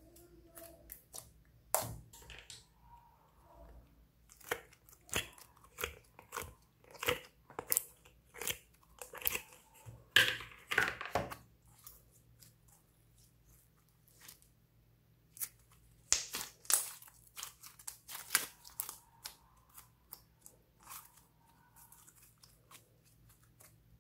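Slime being poked, squeezed and stretched by hand: irregular sticky clicks, crackles and wet squelches in clusters, with quiet spells between.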